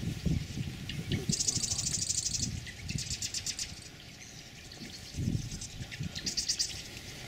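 A small bird giving short, rapid, high trills three times, over a low uneven rumble on the microphone.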